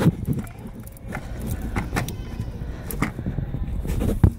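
Gloved hands working around a diesel pickup's top fuel filter housing: rustling with scattered clicks and knocks over a low rumble.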